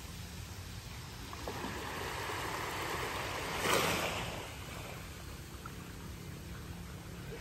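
Small waves washing onto a sandy beach, with one louder wash about four seconds in, over a steady low rumble.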